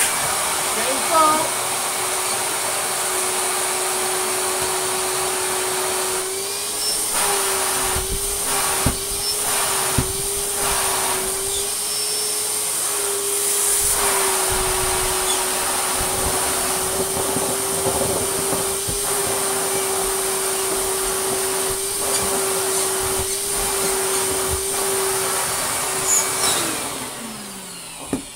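Goblin Aquavac 620 canister vacuum, fitted with a Vax motor, running loud with a steady high whine over rushing air as it sucks up shredded paper. Its pitch wavers and a few knocks come through about eight to ten seconds in. Near the end it is switched off and the motor winds down with a falling whine.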